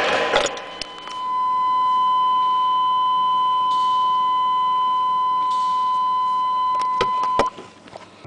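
A steady electronic warning tone held for about six seconds, then cut off, followed by a few sharp clicks.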